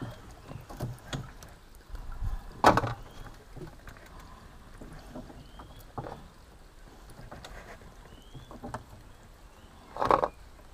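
Scattered knocks and clatter from a landing net and fishing tackle being handled inside a small boat, with two louder knocks, one about three seconds in and one near the end.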